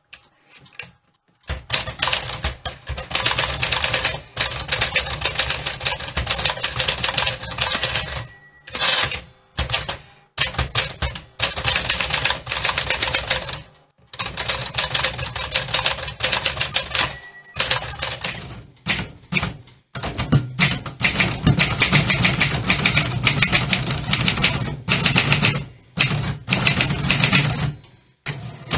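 Typewriter typing in quick runs of sharp key strikes with short pauses, the line-end bell ringing twice.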